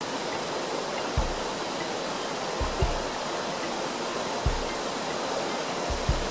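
Steady rush of a waterfall and the small cascades below it pouring into a rocky stream, an even noise with no rhythm. About six brief low thumps sound on the microphone over the course of it.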